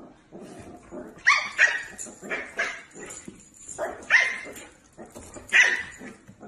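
Small puppy giving short, high-pitched yaps in several quick bouts.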